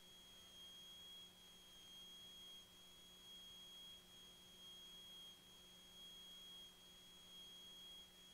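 Near silence on the aircraft's intercom audio feed, with a faint steady high-pitched electrical whine and a fainter low hum beneath it.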